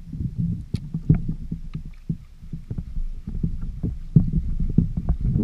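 Water sloshing and slapping against a kayak's hull in an uneven low rumble, with scattered short clicks and knocks from a fishing reel and rod being worked as a jig is fished off the bottom.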